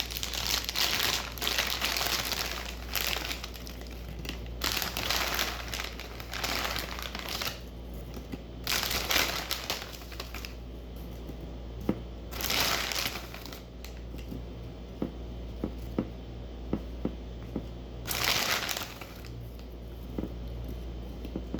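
Crinkling of a plastic chip bag handled in repeated bursts of a second or two as chips are taken out, with a few light ticks in the later part.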